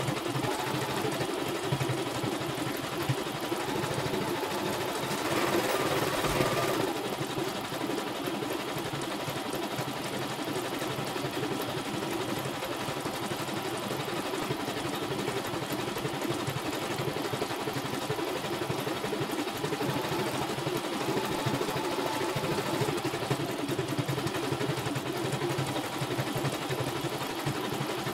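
CNY computerized embroidery machine stitching out a design: a steady, fast mechanical chatter of the needle with the embroidery unit moving the hoop, a little louder around five to seven seconds in.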